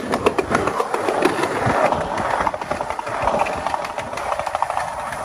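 Skateboard rolling on pavement: a rough, steady rumble of the wheels, scattered with small clicks and knocks.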